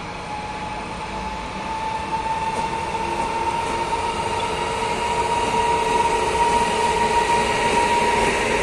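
EP2K electric locomotive pulling a passenger train away from a standstill. It gives a steady whine that rises slightly in pitch over the rumble of wheels on rails, growing louder as it draws level and passes close by.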